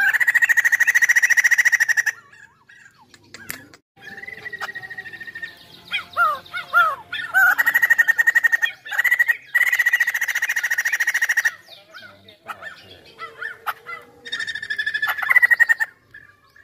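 White-crested laughingthrush singing: long, loud bursts of rapid chattering on one held pitch, the longest through the middle, with short looping whistled notes between the bursts.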